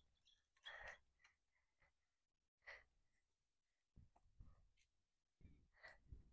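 Near silence, broken by a few faint short puffs of noise.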